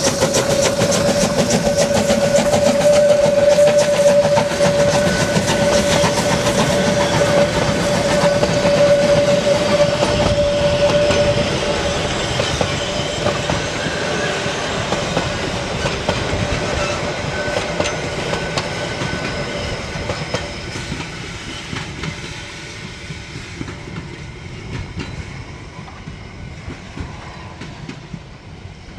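Narrow-gauge steam train moving past: the locomotive working and the wheels of the coaches clattering over the rails, with a steady high tone through the first ten seconds or so. The sound then fades steadily as the train draws away.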